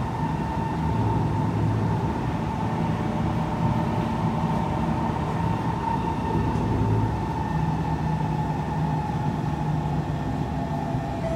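Kawasaki C151 metro train running on its line, heard from inside the car: steady wheel and running noise with a traction-motor whine that drifts slightly lower in pitch as the train slows on its approach to a station.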